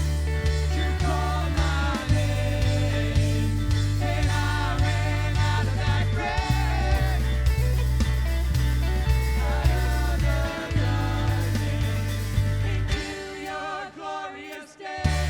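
Worship music with singing over a steady bass and beat; the band drops out briefly near the end before coming back in.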